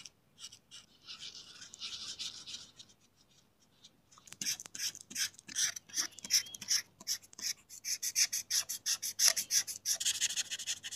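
Felt-tip markers scrubbing back and forth on paper while colouring in, a scratchy rubbing. It is soft and sparse at first, then from about four seconds in it turns into fast, dense strokes, several a second.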